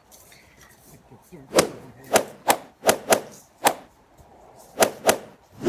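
A run of about nine sharp whacks and thuds in quick, irregular succession, starting about a second and a half in: blows being struck, as in a mock beating.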